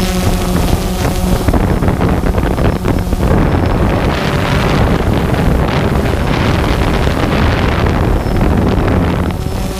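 Quadcopter drone's propellers humming at a steady pitch, heard through the onboard camera's microphone and largely covered by loud wind buffeting. The hum is clearest at the start and again near the end.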